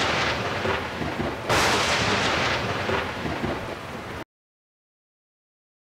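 Thunder sound effect: a rumbling thunderclap, with a second, louder clap about a second and a half in, cutting off suddenly a little after four seconds.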